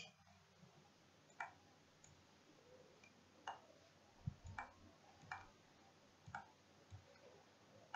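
A handful of faint, irregularly spaced computer mouse clicks over near silence.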